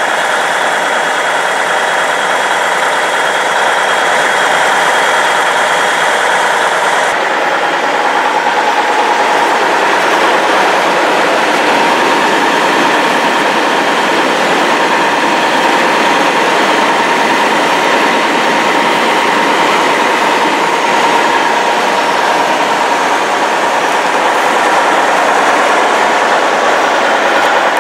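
Diesel engines of a John Deere self-propelled forage harvester and a tractor running steadily at close range. The sound shifts about seven seconds in, and from then on a steady whine runs through it.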